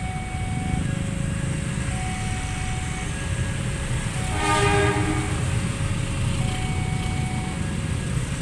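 Railway level-crossing warning alarm sounding a repeating pattern of short electronic tones over the low rumble of a passing train. A single horn blast sounds about four and a half seconds in.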